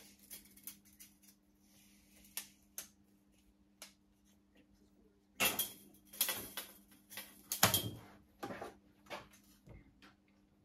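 Scattered clicks, knocks and light metallic rattles of a thin sheet-metal strip and a tape measure being handled on a workbench, with a close cluster of louder knocks from about five to nine seconds in. A faint steady hum lies underneath.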